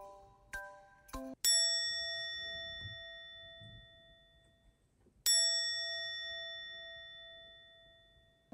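Edited-in music: a few short plinking notes, then a bell struck twice, about four seconds apart, each strike ringing out slowly.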